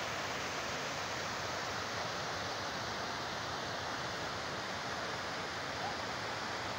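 Shallow mountain stream rushing over a boulder-strewn bed: a steady, even rush of water.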